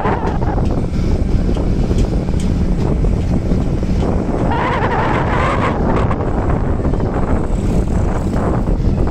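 Wind buffeting the microphone over the steady low rumble of a vehicle moving along the road. About five seconds in there is a brief wavering, pitched sound.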